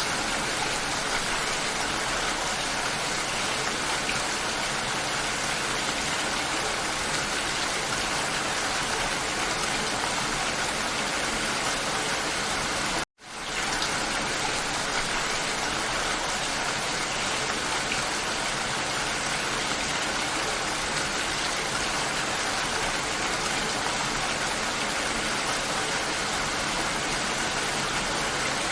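Steady rainfall, an even hiss with no let-up. About halfway through it cuts out to silence for a moment and fades back in.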